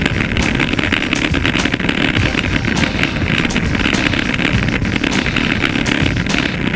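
Wind buffeting the microphone of a bicycle-mounted camera, over road rumble from the bike's tyres on tarmac, with many quick rattling clicks from the mount.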